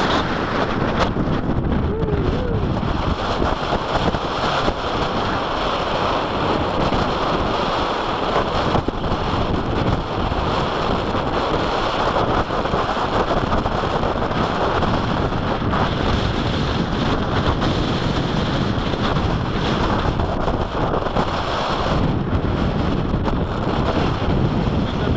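Strong, gusty wind blowing over the microphone: a loud, steady rush of wind noise.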